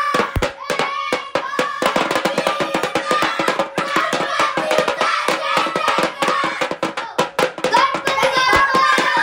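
Music with a fast, dense hand-drum beat and hand-clapping-like strokes under a pitched melody.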